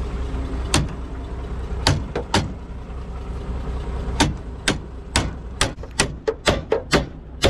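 About a dozen sharp knocks from hand tools working on a disc mower. They come one at a time at first, then about every quarter second near the end, over a steady low engine hum.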